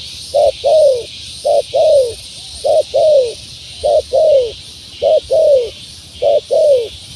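Spotted dove (tekukur) cooing: a two-part phrase, a short note then a longer falling coo, repeated evenly about once a second, six times. A steady high hiss runs underneath.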